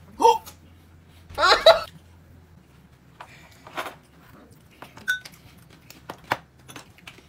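Clinks and taps of chopsticks and dishes during a meal, with two short vocal sounds in the first two seconds: a brief one, then a louder wavering one.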